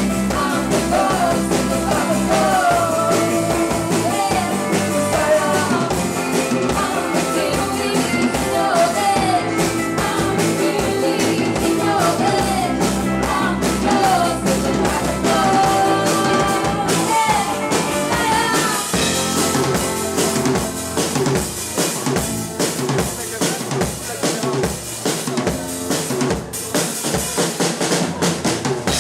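Live rock band playing, with a full drum kit driving the beat. A wavering melody line carries the first half, and from about seventeen seconds in the drums and cymbals take over.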